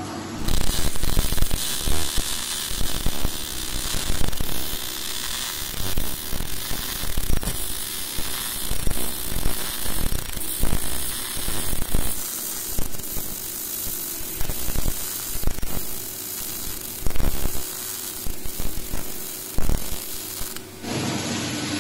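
MIG welding arc crackling steadily as a vertical fillet bead is laid in a steel corner joint. It strikes about half a second in and cuts off near the end.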